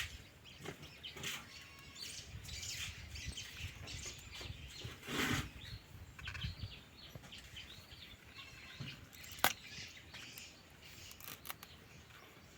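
Birds chirping outdoors, with scattered knocks and clicks and one sharp click in the second half.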